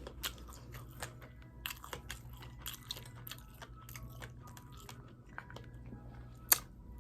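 Close-up chewing and wet mouth smacking of a person eating, a string of irregular clicks with one sharper click near the end.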